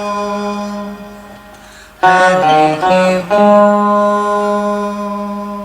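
Veena being played: a long plucked note rings and fades, then about two seconds in comes a quick run of plucked notes, and a second long note rings out and slowly fades.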